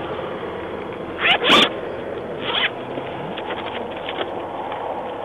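Steady roadside highway traffic and wind noise, with two brief scratchy rustles, the first a little over a second in and a smaller one about two and a half seconds in.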